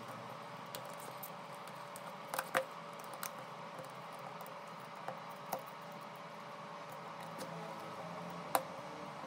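Scattered sharp small clicks and taps of tools and parts being handled on a smartphone under repair, a few a second at most, with the loudest about two and a half seconds in and another near the end, over a steady faint hum.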